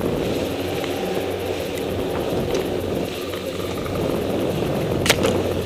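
Chairlift running as the chair rides toward the top station: a steady rumble with a low hum, and a sharp clack about five seconds in.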